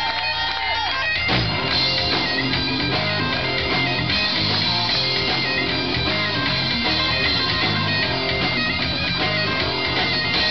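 Live Celtic rock band: highland bagpipes playing a melody over their drone, joined about a second in by electric guitars, bass and drums, the full band then playing on loudly.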